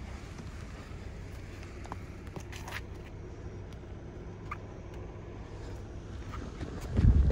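Steady low outdoor rumble with a few faint scuffs of sneakers on asphalt, then heavy footsteps on the pavement begin loudly near the end.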